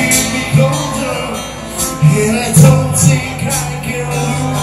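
Live band music, amplified: a man singing into a microphone over a drum kit with repeated cymbal hits and electric guitar.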